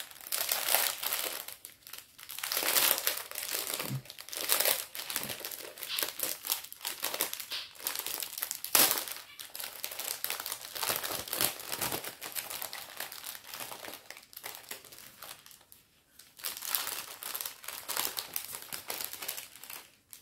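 Small plastic zip-lock bags of round diamond-painting drills being handled, crinkling and rustling irregularly with brief pauses.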